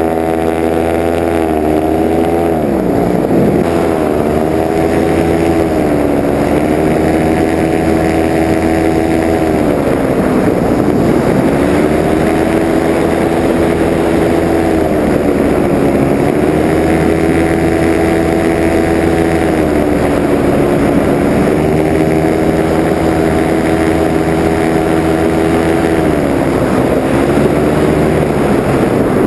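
Paramotor engine and propeller running in flight, the pitch dipping as the throttle is eased off and then climbing back up, four times.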